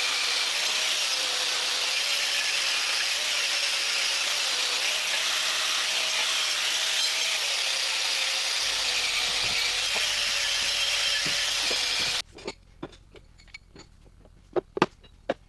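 Electric power tool running steadily under load, its motor whine wavering slightly as it works, then shutting off about twelve seconds in. Scattered sharp clicks and knocks follow.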